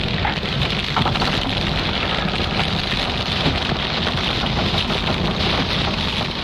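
Fire on a blown-up ship: a steady rushing noise with a low rumble.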